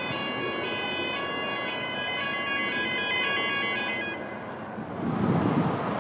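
Wheel squeal from a high-speed train rounding the tight curve, several high-pitched tones shifting and overlapping, dying away about four seconds in. About five seconds in, the low running of a Class 66 diesel locomotive's two-stroke V12 rises.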